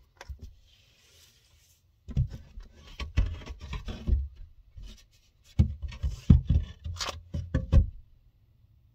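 A run of knocks, thumps and scrapes on wood as a person climbs down through an attic hatch carrying tools. A short rustle comes about a second in, then two bursts of irregular heavy thuds from about two seconds in, stopping abruptly near the end.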